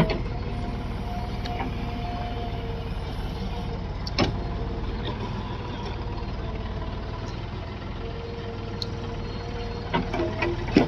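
Heavy diesel engine running steadily, with sharp knocks about four seconds in and several more near the end.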